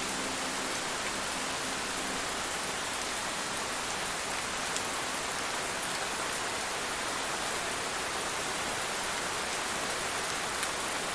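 Steady rain falling as an even hiss, with a couple of single sharper drop ticks.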